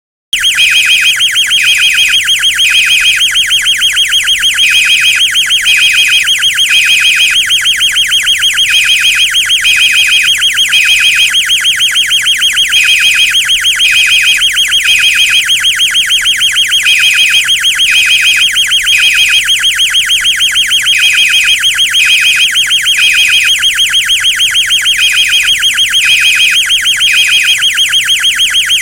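Two fire alarms sounding at once, starting suddenly. One is a continuous, rapidly pulsing high-pitched alarm tone. Over it the other beeps in a temporal-three evacuation pattern: three beeps about a second apart, then a pause, repeating every four seconds.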